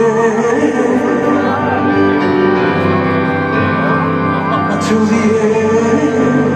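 Live concert music in an arena, recorded from the crowd: soft, steady held keyboard chords with an acoustic guitar, between sung or spoken lines.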